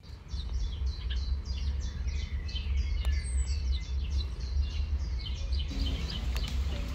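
Birds chirping: a rapid run of short, falling chirps repeating several times a second, thinning out near the end, over a steady low rumble.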